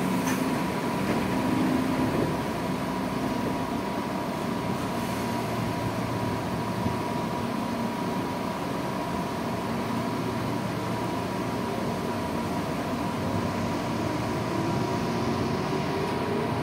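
Tokyu 8500-series commuter car's air conditioning running steadily, with a steady tone over it. About fourteen seconds in, the Toyo traction motors start a rising whine as the train begins to accelerate away.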